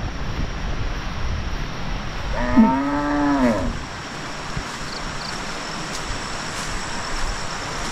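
A cow mooing once, a single call of over a second that rises and falls in pitch, a little before halfway through, over a steady rushing background noise.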